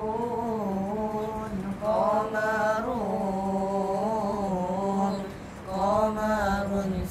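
A boy's unaccompanied voice singing an Arabic devotional praise poem (nazam), drawing out long ornamented vowels with the pitch sliding and wavering, with a short breath break a little past the middle.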